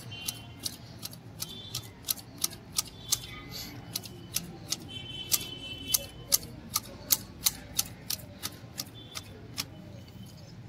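Manual hedge shears snipping a round conifer shrub: a steady run of sharp clicks, about three a second, as the blades close.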